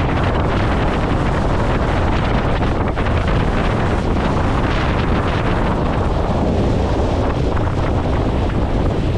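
Steady wind noise on the microphone aboard a motorboat under way on a lake, with a constant low rumble beneath it.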